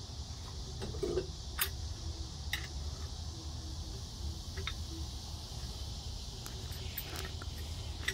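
A few scattered clinks and knocks of metal parts as the steel arm and clamp of a Strong Arm pottery tool are lifted off the wheel and handled. Under them runs a steady high insect drone.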